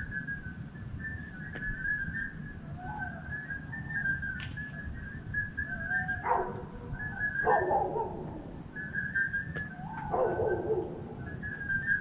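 A dog barking three times, about six seconds in, again a second later, and near the ten-second mark, over a steady high-pitched trilling chorus of night creatures.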